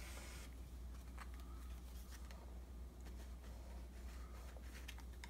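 Faint scraping of a plastic card drawn along the edge of a painted cabinet door, taking off excess fill-stick filler, with a few light clicks over a low steady hum.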